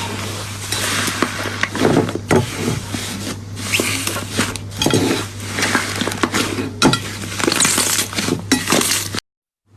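Slime being squeezed and worked by hand, with dense crackling and many sharp clicking pops over a steady low hum. It cuts off abruptly about a second before the end.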